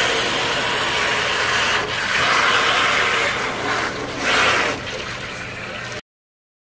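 Garden hose spraying into the shallow water of a plastic kiddie pool: a steady splashing rush that dips briefly twice and cuts off suddenly near the end.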